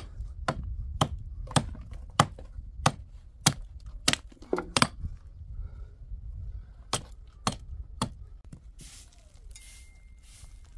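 A hand tool chopping into wood in steady strokes, about one every half second to two-thirds of a second. After a short pause come three more chops, and a soft rustling noise follows near the end.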